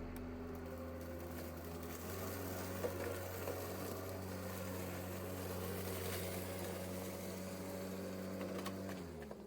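DeWALT DCMWSP244 cordless mower's electric motor and blade running steadily while vacuuming up a pile of leaves, its hum winding down in pitch near the end.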